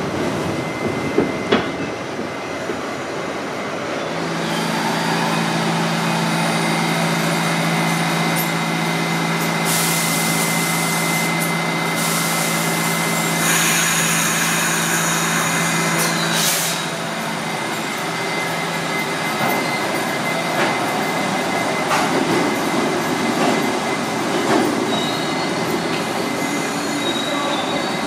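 R68 subway train in a station: a steady low hum from the car's equipment through the middle, with two long bursts of hiss in the middle, over continuous rail and car noise as the train pulls away near the end.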